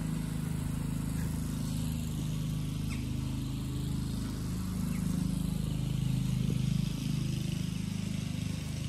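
A low, steady engine hum from an unseen motor, running without change.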